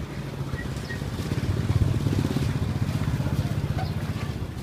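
A small motorbike engine running close by, its rumble growing louder about a second in and then fading, as a bike passing on the street.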